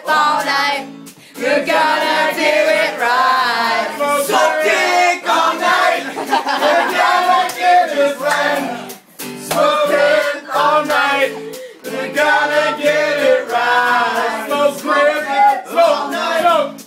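A group of voices singing together, with short breaks in between.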